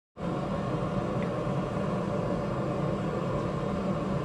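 Gas forge burner running with a steady, even roar, starting abruptly.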